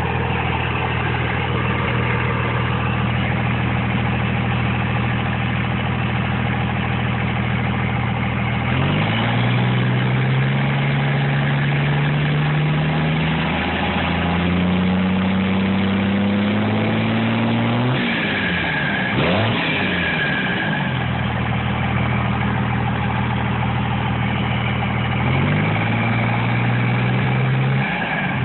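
Cummins turbo-diesel idling, then held at a raised speed from about nine seconds in with its pitch creeping up, dropping back to idle at about eighteen seconds and raised again near the end. A high turbocharger whistle rides over the engine, clearest as it winds down.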